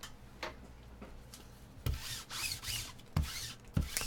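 Sticky lint roller rolled across a table mat, its adhesive sheet crackling as it peels off the surface. It starts about two seconds in: one longer stroke, then a few short, quick ones.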